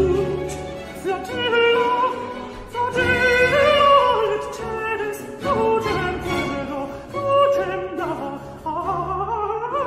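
Countertenor singing a Baroque aria with a string orchestra accompanying, the voice moving through quick runs of notes and holding a note with vibrato near the end.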